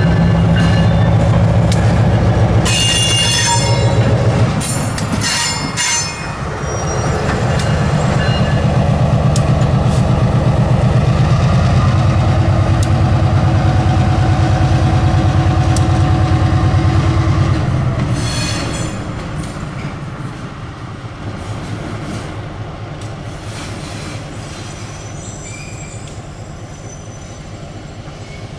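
EMD SW9 switcher locomotive's diesel engine running as it moves along the track, with squealing from the wheels a few seconds in. The engine noise drops back about two-thirds of the way through and stays lower.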